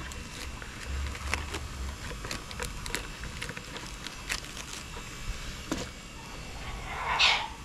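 Light crinkling and scattered clicks of a plastic strip being handled and wrapped around a bud graft, with one louder rustle near the end.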